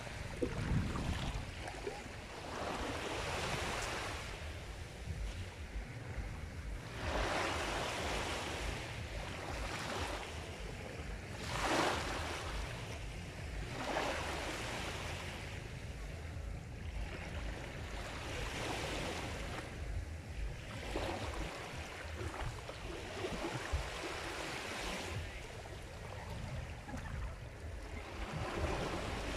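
Sea waves breaking and washing on a shore in irregular swells every few seconds, over a steady low rumble. One wave stands out, louder, about twelve seconds in.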